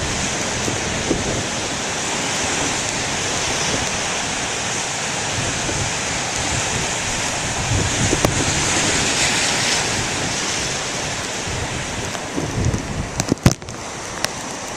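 Heavy surf breaking and washing on a rocky shore, with strong wind buffeting the microphone in gusty low rumbles; the wash swells louder about two-thirds of the way through. A few sharp knocks near the end.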